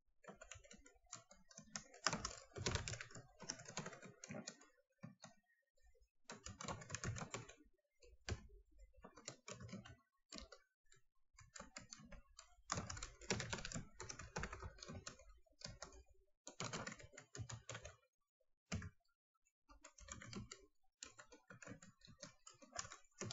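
Typing on a computer keyboard in several quick bursts with short pauses between them, as user names and passwords are keyed into setup fields.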